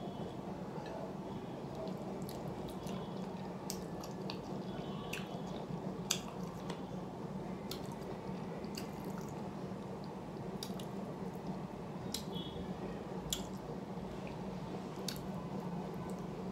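A person chewing food, with scattered short wet mouth clicks and smacks, over a steady low hum.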